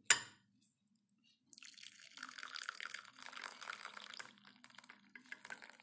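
Cooking water pouring off boiled vegetables from a tilted pressure cooker into a glass bowl: an uneven splashing trickle that begins about a second and a half in. A single sharp knock comes at the very start.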